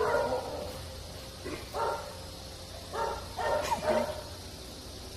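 A dog giving a string of short, high-pitched yips, about five in a few seconds, the last two coming close together.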